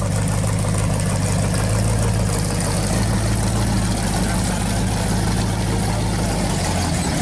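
Supercharged V8 of a second-generation Chevrolet Camaro Z28, its blower sticking up through the hood, idling with a low, steady rumble.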